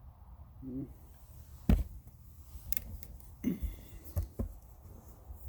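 A few sharp knocks and clicks, the loudest about two seconds in, with a brief low murmur near the start.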